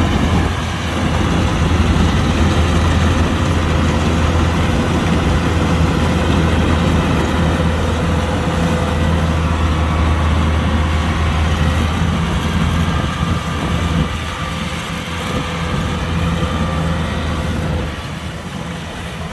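Kubota combine harvester running steadily, with a low engine hum under a broad mechanical clatter. It gets somewhat quieter about two-thirds of the way through and again near the end.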